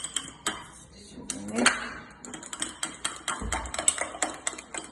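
A spoon clicking and scraping against a bowl in quick, irregular taps, with one louder scrape about one and a half seconds in, as chia seeds are stirred into an egg batter.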